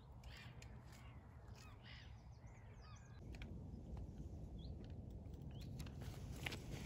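Faint outdoor ambience of birds chirping and calling, over a low rumble that grows a little louder about three seconds in.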